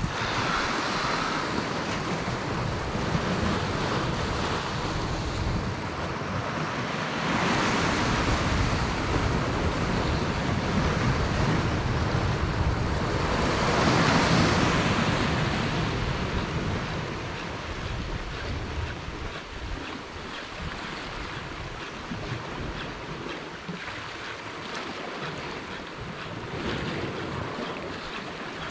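Sea surf breaking and washing over rocks, with wind on the microphone. The surge is strongest about halfway through, with another swell a few seconds earlier.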